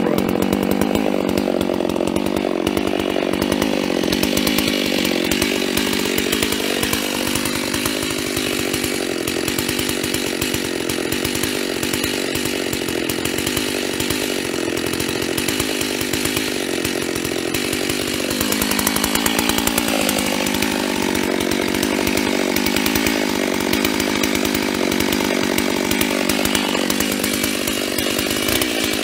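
FarmerTec G388 (a clone of the Stihl MS380) two-stroke chainsaw running steadily under load, cutting through a log and taking a round off it.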